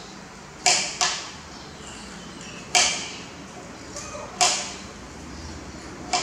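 Kitchen knife chopping through potato onto a plastic cutting board: five sharp knocks at uneven intervals, each dying away quickly.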